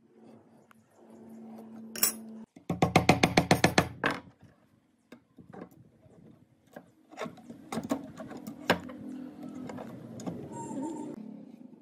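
Workshop sounds of wood being worked: a sharp click, then a fast run of about a dozen knocks at roughly nine a second, followed by scattered clicks and taps.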